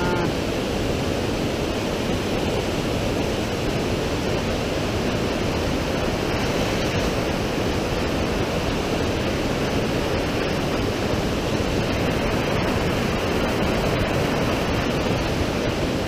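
Fast mountain creek cascading over boulders: a steady rush of white water.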